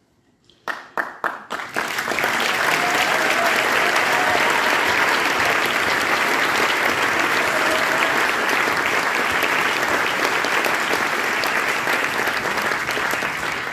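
Audience applauding: a few scattered claps after a short hush, then full, steady applause that eases off slightly near the end.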